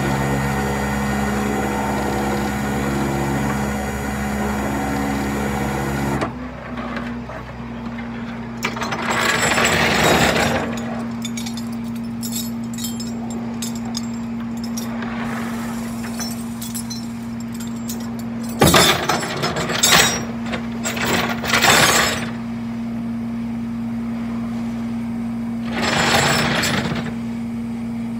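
Flatbed tow truck running with a constant hum; for the first six seconds a louder mechanical whir runs over it and cuts off suddenly. Later come several short bursts of metallic rattling and clanking as the winch cable and hooks are dragged and attached under a van.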